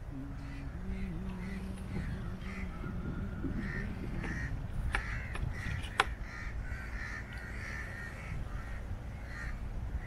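Crows cawing repeatedly, with a single sharp knock about six seconds in.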